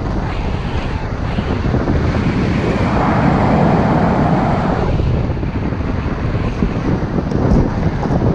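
Strong wind rushing and buffeting over the microphone of a tandem paraglider in flight, with a louder gust about three seconds in that eases off about two seconds later.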